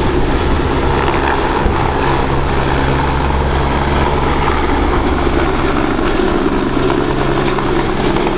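Single-engine Eurocopter AS350 AStar helicopter climbing away just after takeoff: steady rotor beat and turbine noise. About halfway through, the low rotor hum weakens as it banks away.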